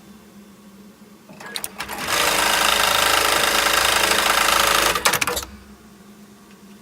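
Dematron DM-0806 programmable bar-tacker (industrial sewing machine) running a sewing cycle on webbing: a few clicks, about three seconds of loud, rapid, steady stitching, then a few more clicks as it stops, over a steady low machine hum.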